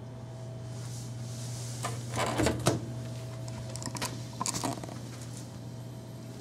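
Clicks and knocks of a mini-fridge door being handled and opened: a loud cluster about two and a half seconds in, a smaller group a couple of seconds later, over a steady low hum.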